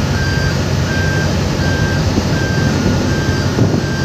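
A loud low rumble of jet engines from a departing airliner. Over it an electronic alarm repeats a short high beep a little over once a second, alternating between two close pitches, like a vehicle's reversing beeper.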